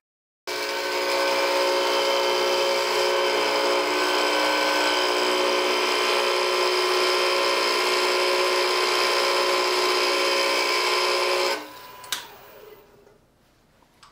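Knurling tool's toothed wheel pressed into a wood spindle spinning on a lathe, cutting a knurled band with a loud, steady, high whine of many tones. It stops abruptly about eleven and a half seconds in, followed by a click and a short falling tone.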